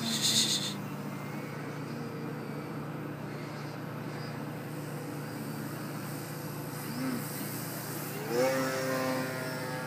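Electric RC aerobatic plane, an Extreme Flight 48-inch Laser with a Motrolfly 2820 brushless motor and a 13x7 Xoar propeller, buzzing steadily at part throttle. At about eight seconds the pitch rises sharply as the throttle opens, then holds higher. A short burst of hiss at the very start.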